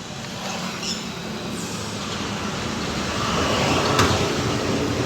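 A steady mechanical rumble that grows louder over the first few seconds, with a sharp click about four seconds in.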